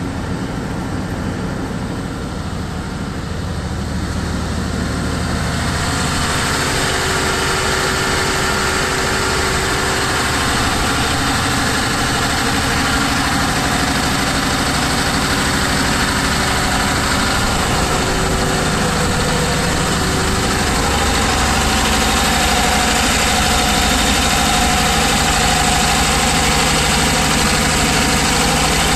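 Large diesel generator set with a Dawson-Keith alternator running steadily at constant speed, with a steady hum over the engine's rumble. It grows louder and brighter from about five seconds in, heard from inside its container enclosure.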